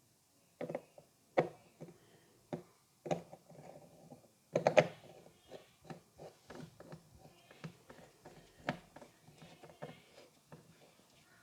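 Hands slapping and tapping on the head and skin during a barber's head massage: irregular sharp slaps with a quick cluster of louder ones about four and a half seconds in.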